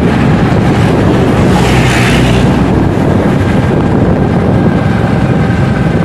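Wind rumbling loudly and steadily on the microphone of a motorbike on the move, mixed with road and engine noise.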